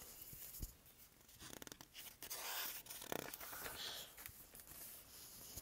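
Faint rustling of a picture book's paper pages being handled and turned, in several short bursts.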